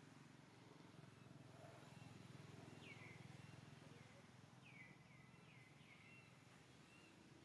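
Faint outdoor ambience with a low hum, and short high chirps that fall in pitch: one about three seconds in, then a quick run of four or five near the end.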